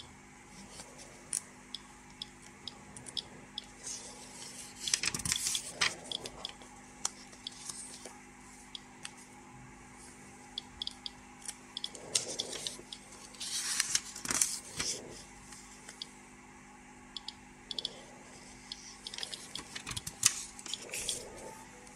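Paper rustling as an old instruction booklet's pages are handled and turned, in a few longer patches, with many short, sharp clicks scattered irregularly in between.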